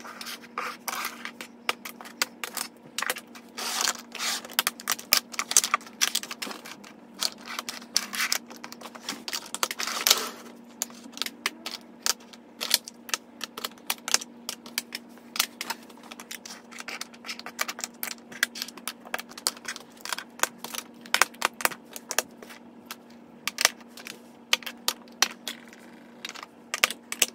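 Plastic and metal blush compacts being set down and shuffled around on a wooden tabletop: a long run of light clicks and clacks, with a short scraping stretch about ten seconds in.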